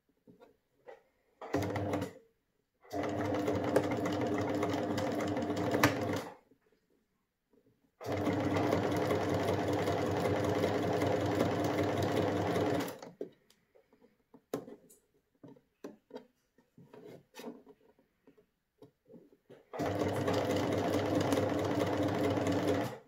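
Domestic electric sewing machine running a tight zigzag stitch in bursts: a short burst about one and a half seconds in, then three longer runs of a few seconds each. Faint clicks and rustles fill the pauses between runs.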